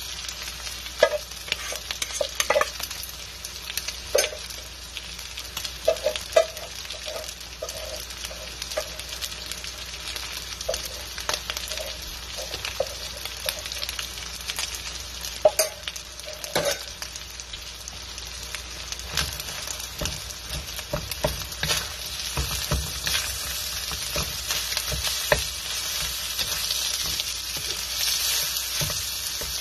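Corned beef, onions and rice sizzling as they fry in a steel wok, with sharp pops and crackles scattered through the first half. In the last third a wooden spoon stirs and scrapes through the food, with soft knocks against the wok and louder sizzling.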